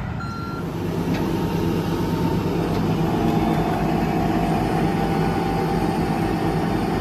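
Flatbed tow truck running steadily with a low hum while its tilted bed is worked to unload a van, after a brief reversing beep at the start.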